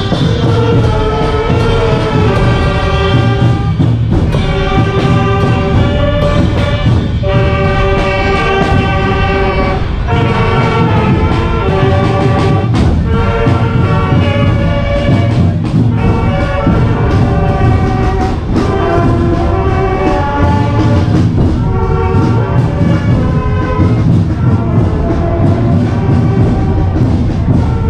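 Music played on brass instruments, a melody of held notes changing about every second over a steady low accompaniment.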